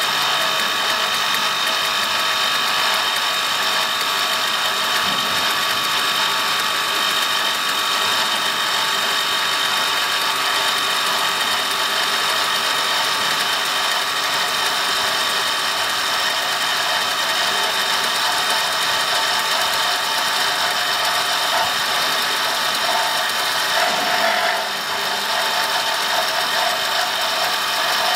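CNC wood lathe turning a wooden blank, the cutter shaving the spinning wood: a steady mechanical whine of several held tones over a dense, rasping hiss. The sound dips briefly near the end.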